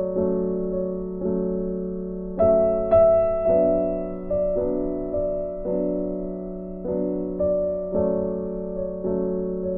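Soft background piano music: slow notes and chords struck about once or twice a second, each ringing out and fading.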